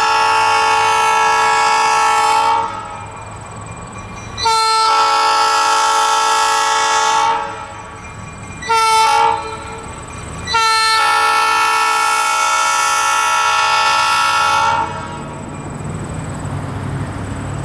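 Diesel locomotive air horn sounding the grade-crossing signal: two long blasts, one short, one long, in a chord of steady tones. Near the end a low engine rumble remains as the horn stops.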